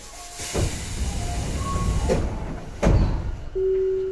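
Tobu 9050-series train doors sliding: a rush of hissing noise, then two heavy thuds as the door panels reach their stops. Near the end comes a steady tone about a second long.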